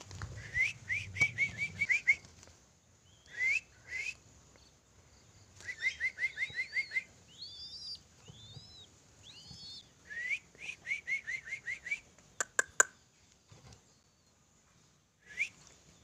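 Quick rising whistles in bursts of six to eight, repeated three times with short gaps: a whistled call signal used to train young puter blorok (pied ringneck) doves to respond. A few higher chirping notes fall between the bursts, and two sharp clicks come near the end.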